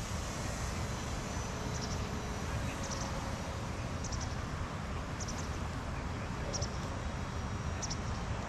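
Steady low wind rumble on the microphone, with a high, short chirp of a few quick pulses repeated about once a second.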